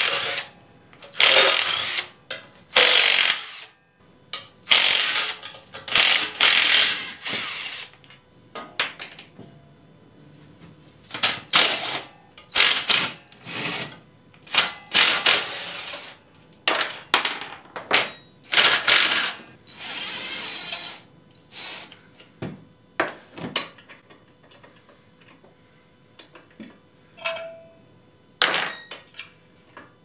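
Cordless drill/driver run in short bursts of about a second, over and over, spinning bolts in and out of a chipper shredder's steel engine mounting plate, with light metal clinks of parts being handled between the bursts.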